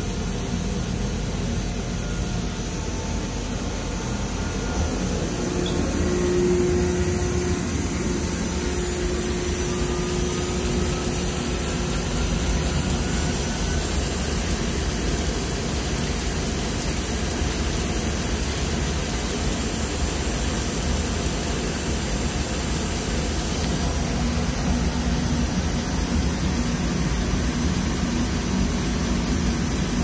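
B&C industrial washing machine (washer-extractor) in its final high-speed spin with a 300 lb load: a loud, steady whir and hum, with a faint whine that rises slowly in pitch about a quarter of the way in.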